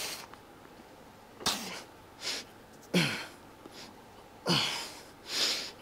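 A man breathing hard and sharply through a set of dumbbell hammer curls: hissing breaths come about every second and a half. Three of them carry a short grunt that drops in pitch.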